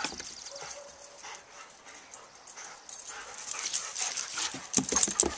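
A dog whining faintly, a thin held whine in the first second or so, followed by scuffling and rustling that grows louder toward the end, with a few sharp clicks.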